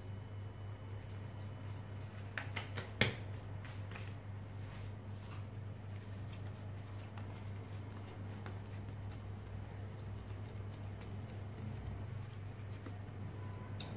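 Faint handling sounds as leftover beignet dough scraps are gathered off a plastic-covered table and pressed into a ball by hand: a few light clicks about two and a half to three seconds in, then soft scattered ticks, over a steady low hum.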